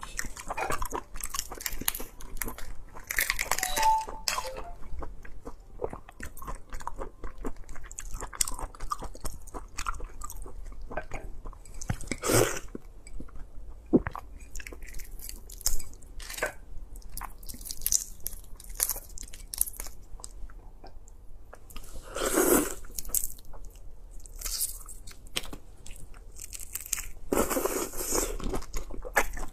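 Close-up eating sounds of raw red shrimp: shells crackling and snapping as they are peeled by hand, and the soft flesh being bitten and chewed, with a few louder wet bites along the way.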